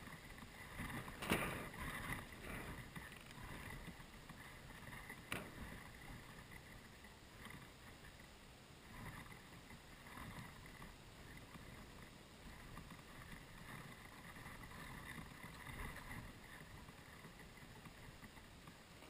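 Faint wind noise with rustling as a windsurf sail is handled on the grass, and two sharp knocks, one about a second in and another about five seconds in.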